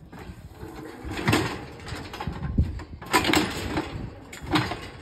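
Steel Arrowquip cattle squeeze chute clanking with a cow inside it: a few sharp metal knocks spaced a second or two apart over a lighter rattling.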